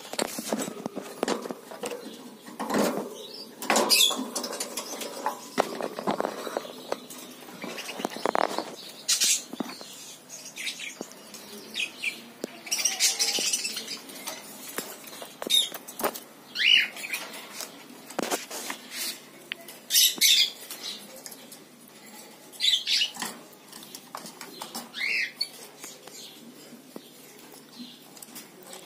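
Rainbow lorikeet scrabbling and fluttering in a wire cage: irregular clicks, knocks and rustles against the bars and fittings, with short high squeaks every few seconds, one of them sliding down in pitch.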